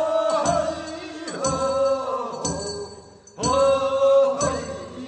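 Men's voices singing the drawn-out refrain of a Gyeongsang-province funeral bier-bearers' song (sangyeo-sori), in held notes that swell and break off about once a second. A metal hand bell is struck in time about once a second.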